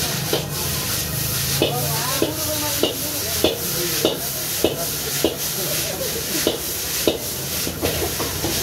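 Metal spatula and ladle striking and scraping a wok in a steady rhythm, a little under two strikes a second, as noodles are stir-fried and tossed, over a constant sizzle from the hot pan.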